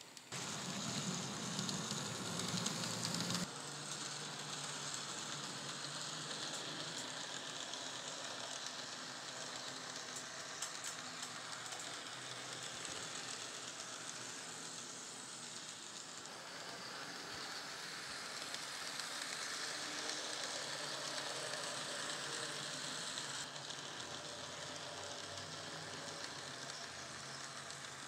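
N scale model trains running on the layout: small electric motors whirring and wheels running on the track, a steady hissing whir that is louder and fuller for the first three seconds or so.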